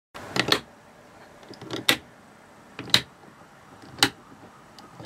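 Five sharp clicks about a second apart over a faint background.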